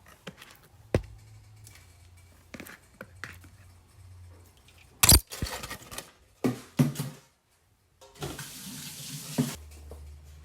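Kitchen work sounds: a few sharp knocks and clatters, the loudest about five seconds in, then a tap running for about a second and a half near the end.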